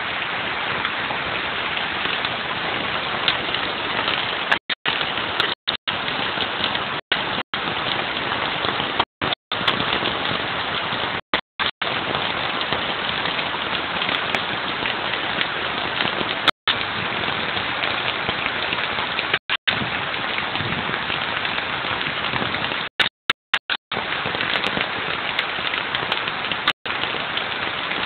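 Heavy rain falling steadily in a storm. The sound cuts out completely for a split second about a dozen times.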